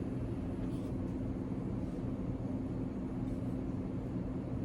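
Steady low background hum with a constant pitch, unchanging throughout.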